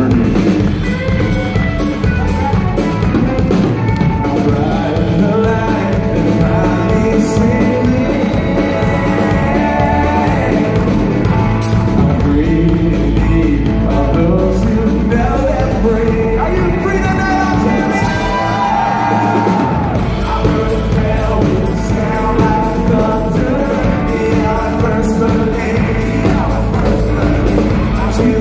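Live band music with a man singing over guitars.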